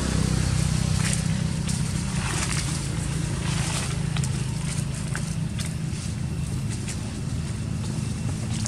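A steady low engine hum runs throughout, with scattered faint crackles and rustles of dry leaves.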